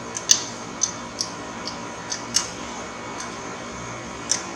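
Light metallic clicks of a 12 mm spanner working the clutch cable's threaded adjuster nut at the engine end: about eight sharp ticks at an uneven pace.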